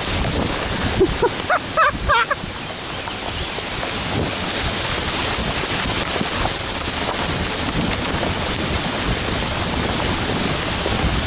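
Steady rain pattering on the leaves and on the camera, with a few short high chirps about two seconds in.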